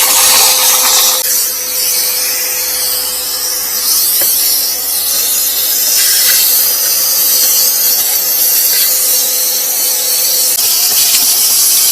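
Vacuum cleaner running steadily with a loud, high hiss, sucking pine needles and debris out of a car's front compartment.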